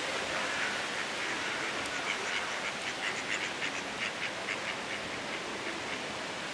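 Mallard quacking: a quick, even run of short calls, about five a second, from about two seconds in until nearly five seconds, over a steady rushing background.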